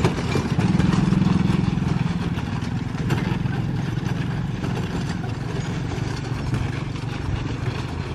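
Small vehicle engines running steadily close by, louder for a second or two near the start: motorcycles and the vehicles of a towed string of decorated passenger carts crossing a railway level crossing.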